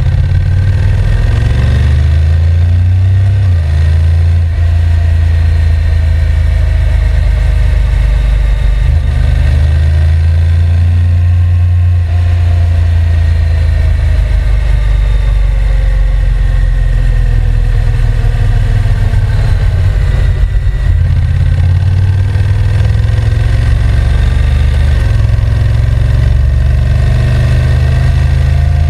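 Honda NC750X's parallel-twin engine running steadily with a deep rumble, its pitch slowly rising and falling.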